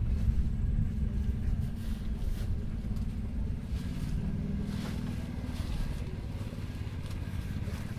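Large diesel tractor engine of a John Deere 9RX 830 running steadily with a deep rumble, its pitch lifting slightly about halfway through.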